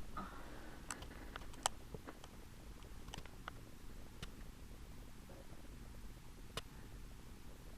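Quiet indoor background with a steady low rumble and a few scattered sharp ticks, the loudest about a second and a half in.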